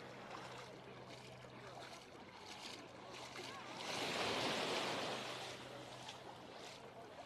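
Small waves lapping and washing up onto a sandy beach, with one wave breaking at the shoreline about four seconds in, the loudest moment, before the wash falls away again.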